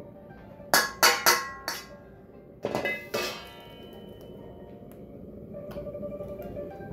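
Stainless steel wok ladle clanking against a carbon-steel wok, six sharp strikes in the first three and a half seconds, over background music.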